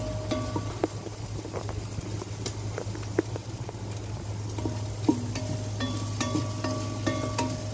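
A wooden spoon stirring onions frying in oil in an enamelled pot, with a light sizzle and repeated short knocks of the spoon against the pot, over a steady low hum.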